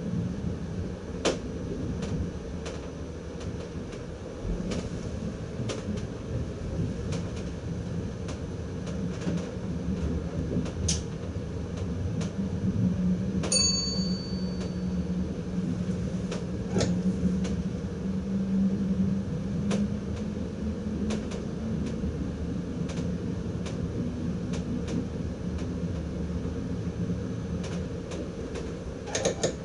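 Driver's cab of an NS ICM electric intercity train running along the line: a steady low rumble and hum with scattered clicks and rattles. About halfway through there is a sharp click with a brief high ringing ping.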